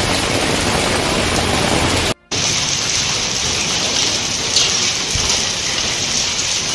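Heavy rain falling: a steady, dense hiss of rain on surfaces. About two seconds in the sound drops out for a moment, then the rain carries on.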